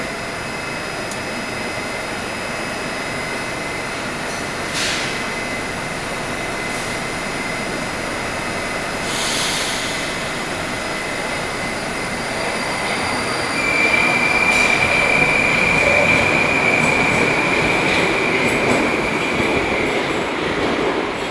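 Moscow metro 81-765 "Moskva" train at an underground platform: a steady hum of the train with a faint high tone, a short click about five seconds in and a brief hiss a few seconds later. From about two-thirds of the way through, a louder steady high-pitched whine joins in.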